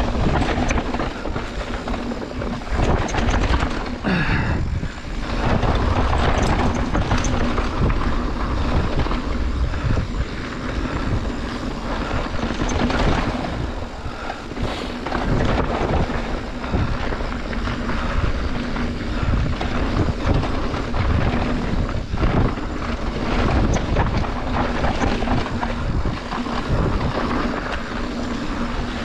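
Mountain bike descending a dirt and rock singletrack at speed: a continuous rush of tyre and wind noise, broken by frequent knocks and rattles from the bike over rocks and roots.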